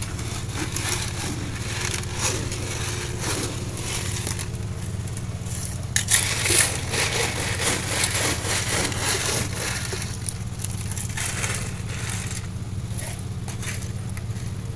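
Ice cubes clattering and crunching in plastic as iced lemon tea is stirred and ladled from an ice-filled dispenser into a cup of ice, in irregular scrapes that are busiest about six seconds in, over a steady low hum.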